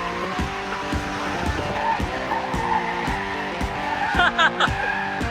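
Tires of a Ford electric car squealing in short wavering chirps about four seconds in as it is driven hard through a turn on an indoor test track, over background music with a steady beat.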